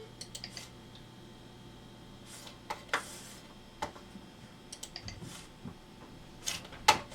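Scattered, irregular clicks and taps from a computer being operated by hand, with the loudest pair of clicks near the end.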